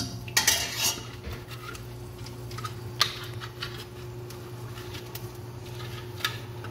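Slotted stainless-steel spoon scraping and clinking against a stainless-steel pot while chopped onions are stirred in oil. A burst of clatter comes in the first second, then a few single clinks.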